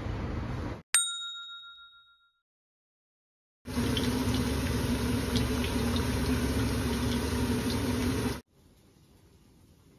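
A single bright ding rings about a second in and fades over a second and a half. After a short silence, a maesaengi seaweed pancake sizzles in a frying pan and buckwheat noodles boil in a pot on an induction hob, a steady hiss with small pops over a steady hum, until it cuts off a little past eight seconds.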